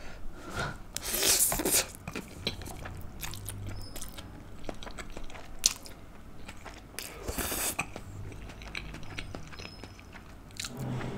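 Eating sounds: stir-fried udon noodles slurped off chopsticks and chewed, with two longer slurps, about a second in and about seven seconds in, over steady small chewing clicks.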